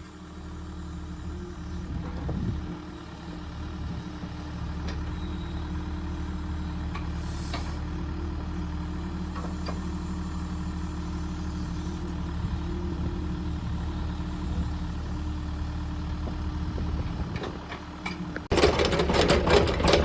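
SDLG E655F excavator's diesel engine idling steadily. About eighteen seconds in, the sound jumps louder into a dense rattling clatter.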